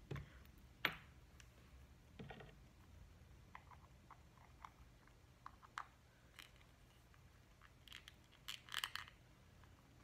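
Faint, scattered clicks and taps of tiny plastic miniature pieces being handled and pressed into a small plastic base, with a few slightly louder clusters about two seconds in and near the end.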